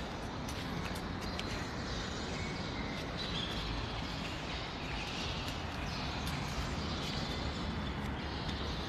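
Steady background noise with a low rumble and a few faint clicks.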